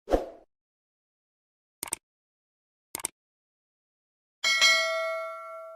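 Cartoon transition sound effects: a short low thump, two quick double clicks about a second apart, then a bright bell-like ding that rings out and fades near the end.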